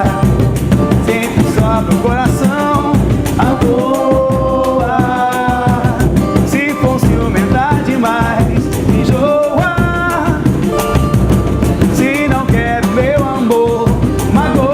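Samba-pagode band playing live: a sung melody over drums and percussion with a steady beat.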